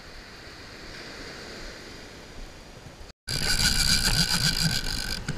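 Gentle surf and wind at the water's edge, then, after a sudden jump in loudness about three seconds in, wind buffeting the microphone with a steady high whine while a conventional fishing reel is cranked to retrieve line.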